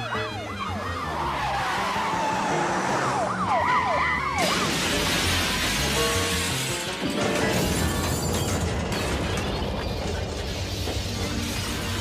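Film score with a siren wailing in fast up-and-down sweeps for the first four seconds or so, then a sudden loud rush of noise over the music that runs on, changing about three seconds later.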